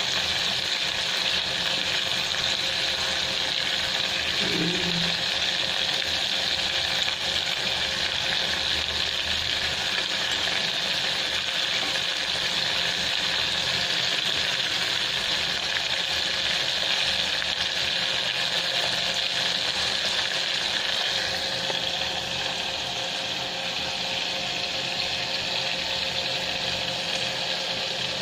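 Chicken livers deep-frying in a pot of hot oil: a steady sizzle, easing slightly in the last few seconds.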